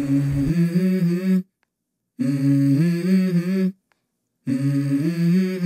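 Background music: a wordless, hummed vocal melody in three short phrases of held notes, each broken off by a moment of silence.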